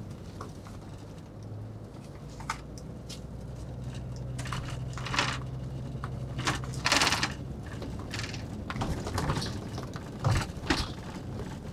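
Cabin sound of a JR double-decker highway bus under way: a low, steady engine drone with scattered clicks and rattles from the interior, the loudest about seven seconds in.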